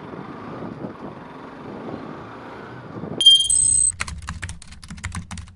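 Road and riding noise for about three seconds, then an abrupt cut to a brief high electronic tone followed by a fast run of computer-keyboard typing clicks.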